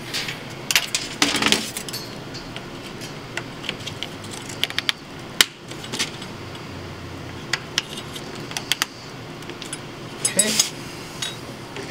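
Small metal bushings being handled and pressed into a laser-cut wooden frame: scattered light clicks, taps and clinks of metal against wood and metal.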